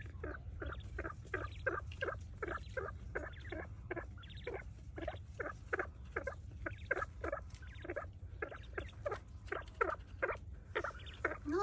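Quail calling in a rapid, even run of short chirps, about three a second, over a steady low background rumble.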